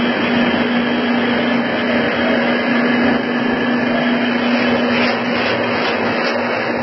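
Corn-chip production line machinery running: a steady, loud mechanical noise with a constant low hum underneath.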